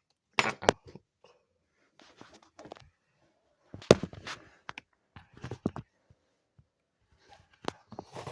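Small engine parts and a tool being handled during the teardown of a model V8 engine: scattered clicks and knocks, the loudest a sharp click about four seconds in.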